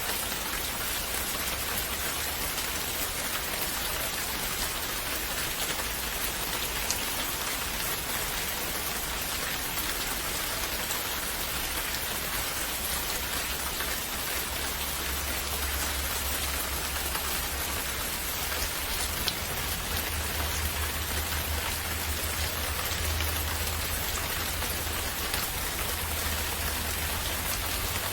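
Steady rain falling and pattering on surfaces, an even hiss with scattered drop ticks. A low rumble swells underneath from about halfway through.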